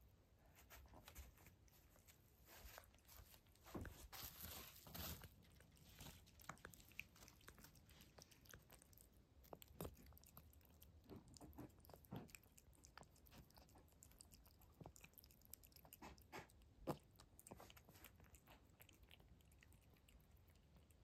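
Calico cat eating wet food from a porcelain bowl: faint, irregular wet chewing and lapping clicks, busier about four seconds in, with one sharper click near the end.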